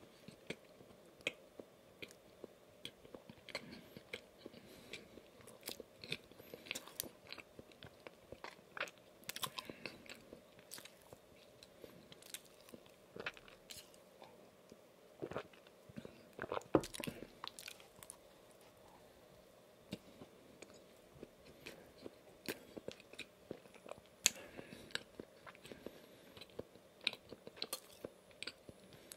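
Close-miked chewing of a soft red velvet cream-cheese-filled doughnut: irregular short mouth clicks throughout. Partway through, a sip and swallow of a drink, with a louder cluster of clicks.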